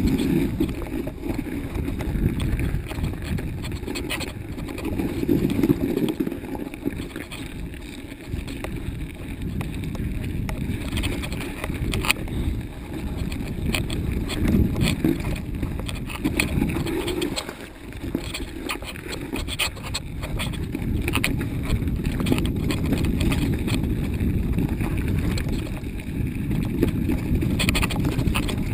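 Mountain bike ridden down a snowy, rough forest trail: wind rumbling on the camera microphone, with the bike rattling and clicking over bumps.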